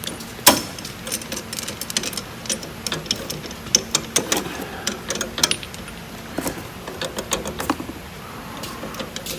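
Metal tooling being handled: irregular light clicks and clinks of steel parts, one sharper knock about half a second in, as an R8 collet is worked out of the mill head, over a faint steady hum.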